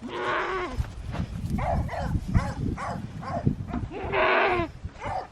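Goats bleating at feeding time: two long, loud bleats, one at the start and one about four seconds in, with a run of shorter bleats between them.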